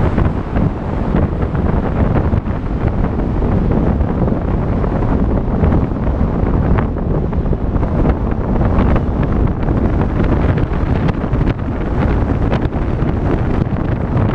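Wind buffeting the microphone of a camera on a moving car, over the car's road and tyre noise: a loud, steady, low rumble with no letup.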